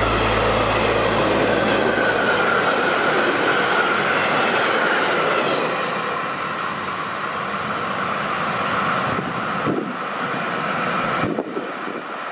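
Empty car-transporter freight wagons rolling past at speed: a dense rattling rush of wheels on rail with a steady high ringing tone from the wheels. It grows a little fainter in the second half as the train pulls away, with a couple of sharp knocks near the end before the sound cuts off.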